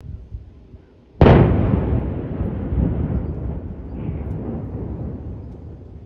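Power plant demolition charges detonating: one sudden loud blast about a second in, followed by a long rumble that slowly fades and then cuts off suddenly.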